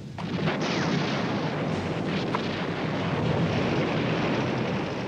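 Battle sound effects: a steady, dense rumble of artillery and explosions, with a few faint sharp cracks of gunfire.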